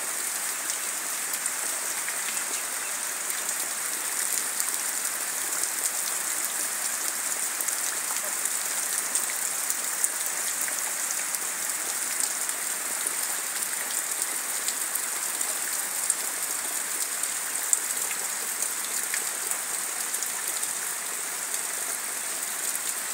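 Heavy rain falling steadily on vegetation and muddy ground: a dense, even hiss dotted with the small ticks of individual drops.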